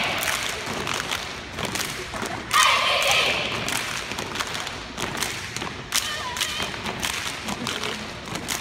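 Step team stomping and clapping in unison: a run of sharp foot stomps and hand claps, with a brief burst of voices about two and a half seconds in.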